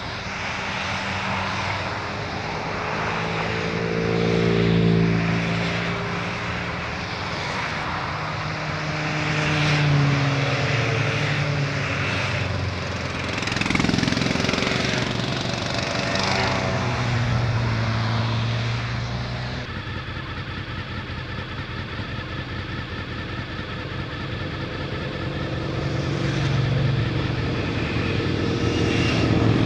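A string of motorcycles ride past one after another, each engine note swelling and sliding in pitch as it goes by. About two-thirds through it changes abruptly to the steady drone of a Honda VFR800's V4 engine under way, with wind and road noise.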